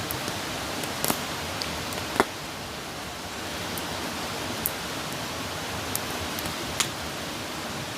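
Campfire burning with a steady hiss and scattered sharp crackles and pops, the loudest about two seconds in.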